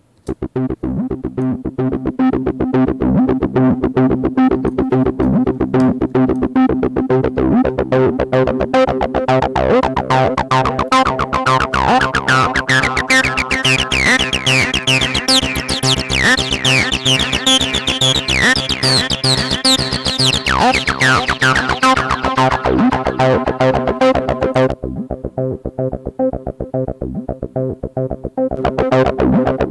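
TB-303-style acid bass line over a steady beat, played through a distortion plugin's Valve Screamer tube-overdrive setting. Midway it grows brighter and grittier, with gliding high tones sweeping up and down. Near the end it goes dull for a few seconds before the grit comes back.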